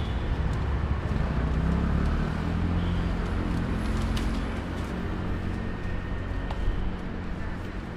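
Road traffic: a car engine rumbling as it passes close by, loudest a second or two in and then easing into steady traffic noise.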